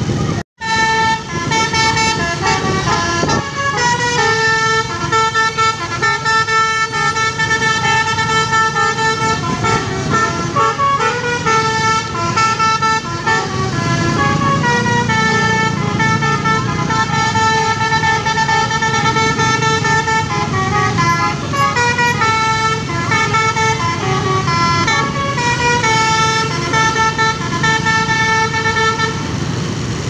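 Basuri telolet musical air horn on a bus playing a long tune of stepping notes, with motorbike engines running underneath. The sound drops out for a moment about half a second in.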